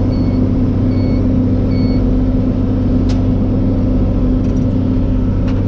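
Tractor engine running steadily, heard from inside the cab, while the round baler's in-cab monitor gives three short beeps in the first two seconds as the manually triggered net wrap ties the bale. There is a sharp click about three seconds in and another near the end.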